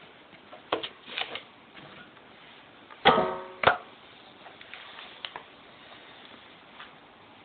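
Small kitchen knife working runner beans on a plastic chopping board: scattered light taps and clicks, then about three seconds in a loud knock of the knife on the board that rings briefly, with a second knock just after.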